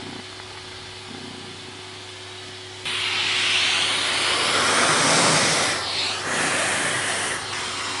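Bosch GS-50 ProSilence vacuum cleaner drawing air through its brush nozzle as it is run over a cat's fur. A faint low hum comes first; about three seconds in a loud rushing hiss of suction starts suddenly, then swells and dips briefly a couple of times as the nozzle moves.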